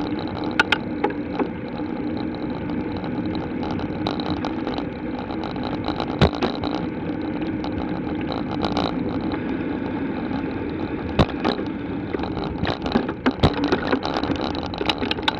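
Bicycle rolling along a paved lane, picked up by a camera mounted on the bike: a steady hum of tyres and road with scattered sharp knocks and rattles from bumps, more of them in the last few seconds.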